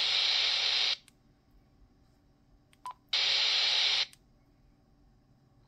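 Handheld transceiver's speaker hissing with open-squelch static on an empty airband channel, cutting off abruptly about a second in. Just before three seconds a short key beep sounds, then another burst of static for about a second, again cut off sharply.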